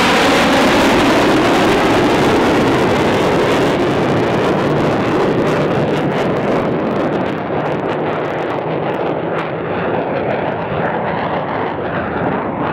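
F/A-18 Hornet's twin jet engines in afterburner, loud through a tight high-G turn. From about five seconds in the hiss fades as the jet climbs away vertically, leaving a duller rumble that carries on.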